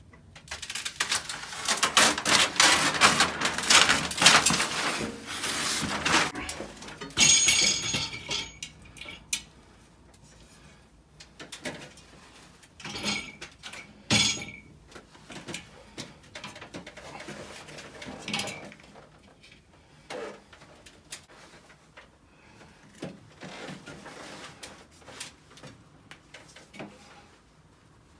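Metal boiler mounting jig being handled and set against a wall: scattered knocks and clatters of the metal frame, after several seconds of rustling and scraping near the start.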